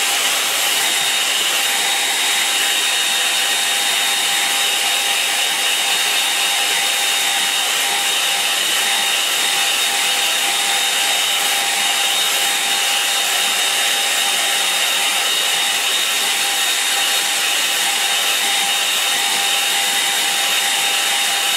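Handheld hair dryer running steadily, blowing over a wet watercolour painting to dry the paint: an even rush of air with a constant whine.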